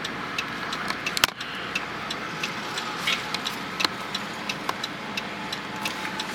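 Car turn-signal indicator clicking steadily, about three clicks a second, inside the cabin of a car stopped at a red light, over the low hum of the engine idling. A single louder knock about a second in.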